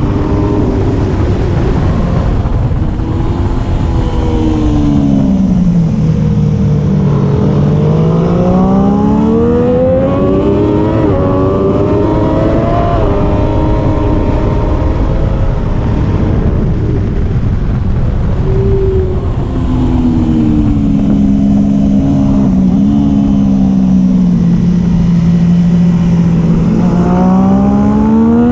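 Triumph Daytona 675R's three-cylinder engine on the move, its revs falling and climbing several times as the bike slows and accelerates, over a steady rush of wind noise.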